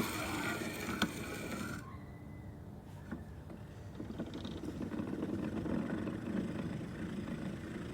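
Faint low rumbling noise, with a single click about a second in; the high hiss over it drops away about two seconds in, leaving only the rumble.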